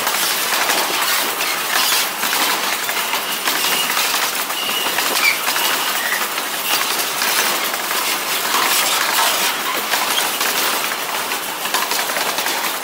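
Loaded fuel tank cars of a freight train rolling past close by: a steady rush of steel wheels on the rails, broken by frequent clicks as the wheels pass over the track.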